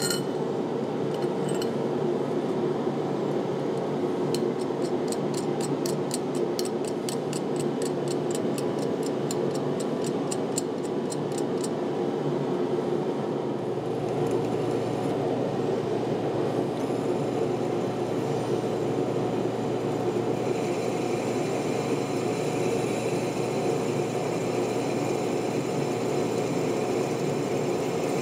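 Drill press motor running steadily while a twist bit drills into steel, first a small bracket and then square steel tubing. A run of quick, evenly spaced ticks sounds for several seconds in the first half, and a higher cutting whine joins the motor hum in the last third as the bit bites into the tube.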